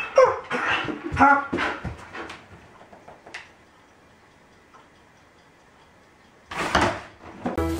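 German Shepherd dog whining and yelping in several short pitched calls over the first two seconds or so, one falling steeply in pitch. Then a quiet stretch, and a loud short bark about six and a half seconds in.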